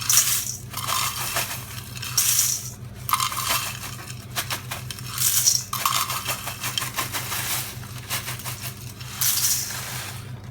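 Cornflakes poured by the cupful into a large bowl: a dry, crisp rustling rattle of flakes that comes in repeated pours a few seconds apart.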